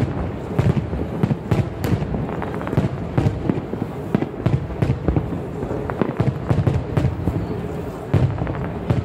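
Aerial firework shells bursting in quick, irregular succession: several sharp bangs a second over a steady low rumble.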